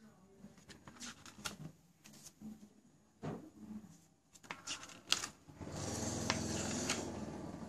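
Pages of a paper booklet rustling and flicking as they are turned by hand, with scattered light clicks and one louder, longer rustle of paper near the end.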